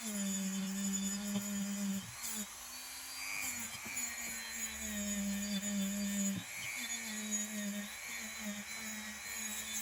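Small electric power tool motor whirring with a steady hum and a thin high whine. It cuts out or slows briefly a few times and runs up again.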